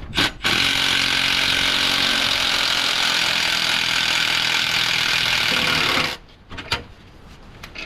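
Cordless power tool running loud and steady for about five and a half seconds after a short blip, working a fastener during gearbox removal. It stops abruptly.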